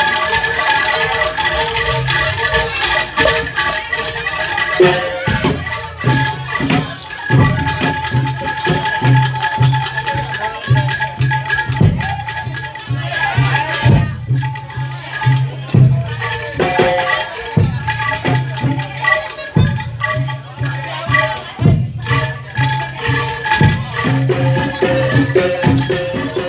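Loud live jaranan (kuda lumping) music: kendang drum strokes over a repeating low pulse, with a held melody line above.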